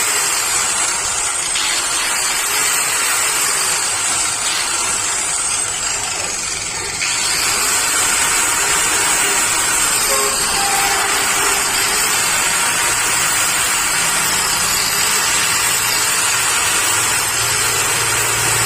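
Electric AC grinder running freely at full speed, a loud steady whir with a high whine that wavers in pitch. It gets louder about seven seconds in. Its carbon brushes have just been thinned and the machine greased, which the owner says has cut its noise and stopped it cutting out.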